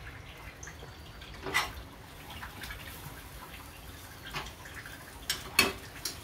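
Light kitchen clatter: a few short knocks and clicks of utensils and dishes, the loudest near the end, over a faint steady background.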